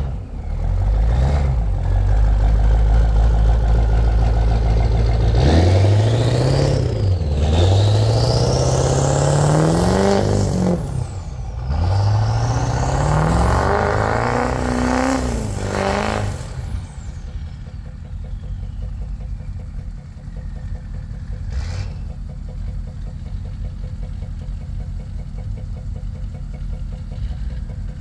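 A vehicle's engine under load while plowing snow, revving up and falling back several times as it pushes, with a high whine rising and falling with the revs. About 17 seconds in it drops to a steady idle while the whine winds down, and there is one sharp click a few seconds later.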